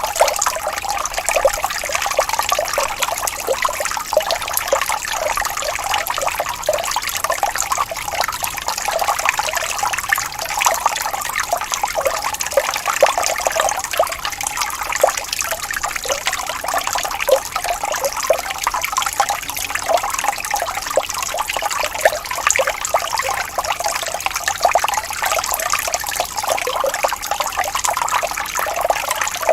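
Running water trickling and splashing steadily, a dense patter of small gurgles and splashes with no deep rumble.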